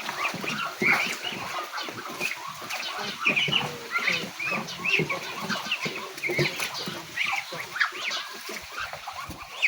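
A flock of hungry ducks calling for food, many short overlapping calls one after another.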